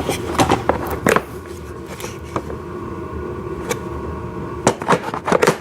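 Hard plastic toy parts clicking and knocking together as they are handled, in a cluster at the start and again near the end, over a faint steady hum.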